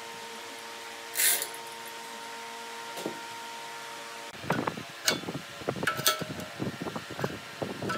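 A steady machine hum with a brief hiss about a second in. Then, from about four seconds in, irregular metallic clanks and knocks, several a second, as a steel bar is worked at the headstock spindle of a big wood lathe while a heavy log is being mounted on it.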